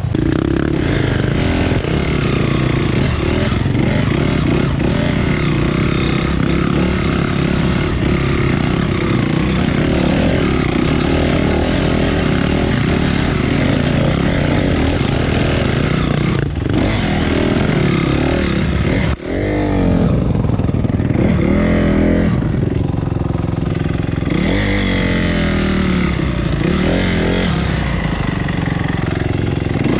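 Dirt bike engine running under load, its pitch rising and falling as the throttle opens and closes. There is a brief drop in sound about two-thirds of the way through.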